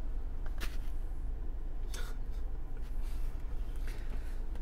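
A crumpled paper food wrapper being handled, with a few short crinkles and rustles about half a second, two seconds and four seconds in, over a steady low hum inside a car.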